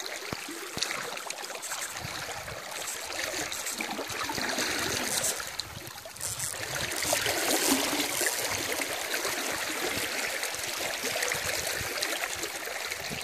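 River current flowing and rippling, a steady rushing hiss of moving water.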